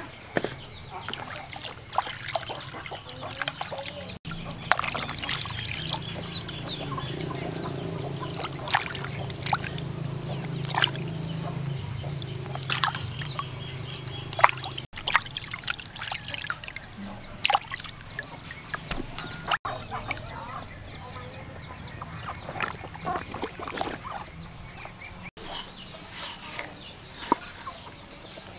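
Water splashing and trickling as a whole raw plucked chicken is rinsed and handled in a plastic basin, with poultry calling in the background and a low steady hum through the middle. Near the end, a knife cuts on a wooden chopping board.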